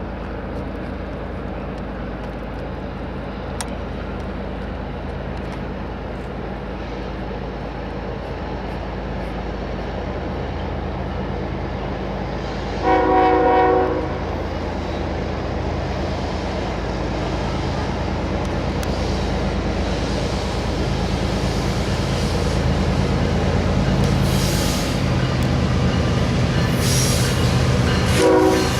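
GE diesel locomotives of an approaching freight train running with a steady low engine drone that slowly grows louder. About halfway through, the air horn sounds one short chord of several notes, and the horn sounds again at the very end.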